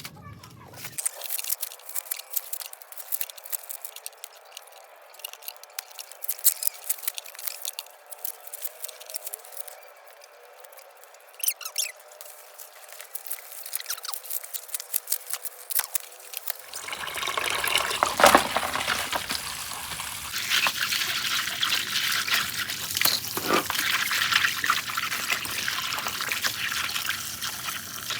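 Liquid pouring and trickling, with scattered clicks and taps; the pouring grows louder and steadier a little past halfway.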